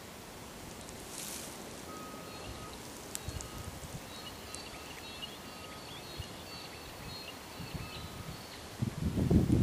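Outdoor rural ambience: a steady hiss with small birds chirping and twittering for several seconds, then wind buffeting the microphone loudly near the end.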